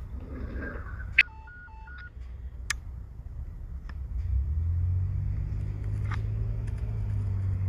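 Sharp clicks and a short run of electronic beeps stepping between a few pitches, then a steady low hum that swells about four seconds in, over a low rumble.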